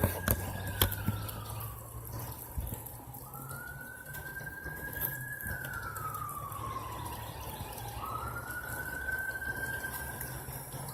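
Emergency-vehicle siren wailing: one tone that rises quickly, then falls slowly, repeating about every five seconds. A steady low hum runs underneath, with a few sharp clicks near the start.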